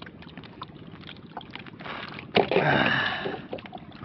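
Light taps and clicks of hands working fishing line and gear in a small wooden outrigger canoe. About two and a half seconds in comes a louder splash and slosh of water lasting about a second, as a mesh net bag is dipped into the sea beside the hull.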